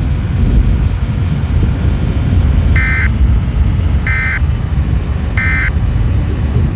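Heavy, steady rumbling storm noise, with three short electronic beeps about a second and a quarter apart through the middle.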